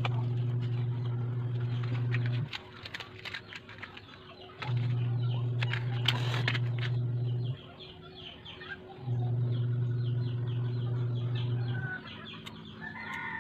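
A low steady hum that switches on for two to three seconds and off for about two, four times over, with light clicks and knocks from firewood being handled as a cooking fire is laid and lit. A few short bird calls come near the end.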